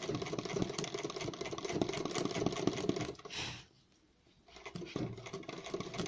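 Sewing machine stitching rapidly in machine embroidery, the needle running as a fast, even stream of ticks. It cuts out for under a second about two-thirds through, then starts again.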